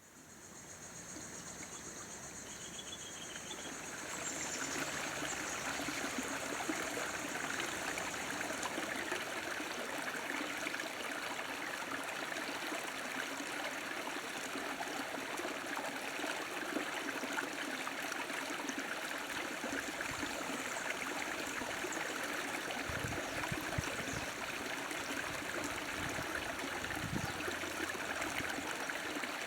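A stream flowing and trickling steadily, fading in over the first few seconds. A high, thin trill sounds above it for the first several seconds.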